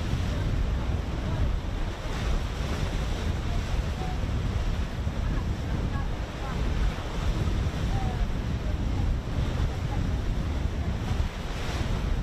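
Wind buffeting the microphone over the wash of sea waves: a steady low rumbling noise with a couple of stronger gusts.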